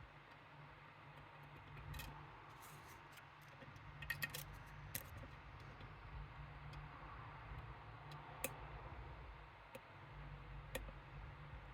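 Faint, scattered metallic clicks and taps of small tools working inside a Medeco M3 lock cylinder, with a quick cluster of clicks about four seconds in.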